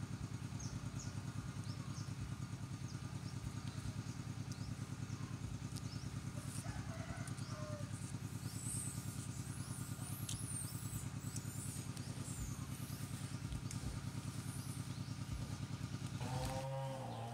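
Steady low drone of an idling engine, with a fast, even pulse, and faint high chirps over it; near the end a wavering higher-pitched tone comes in.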